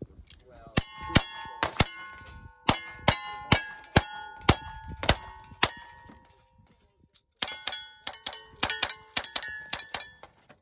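Cowboy action shooting: a quick string of about ten gunshots, each followed by a hit steel target ringing on. After a pause of about a second and a half comes a second, faster string of shots and ringing steel, fired with a revolver.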